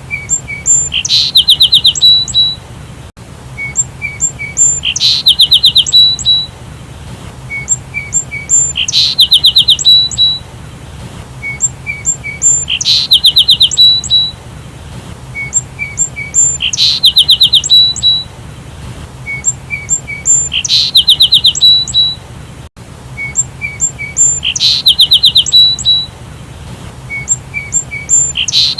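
Sparrow calls: a few short chirps followed by a fast trill of a dozen or so notes, the same phrase repeating about every four seconds, over a faint low hum.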